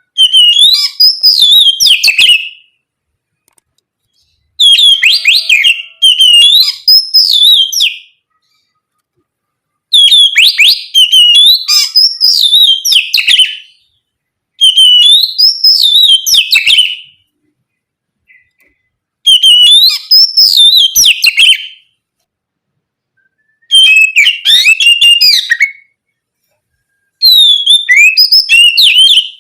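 Oriental magpie-robin (kacer) singing loud, clear whistled song in repeated phrases of two to three seconds, each a run of looping notes that rise and fall, with short silences between them. There are about seven phrases.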